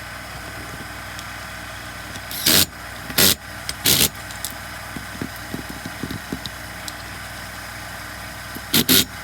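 Short, loud clatters and knocks of tools and small chainsaw parts being handled on a workbench: three about a second apart, then a quick pair near the end, with light ticks between them. A steady hum runs underneath.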